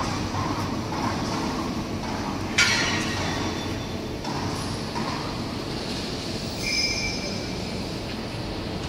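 Fiber laser tube cutting machine running with a steady mechanical rumble, a sharp metallic clank about two and a half seconds in, and brief high-pitched squeals near the end.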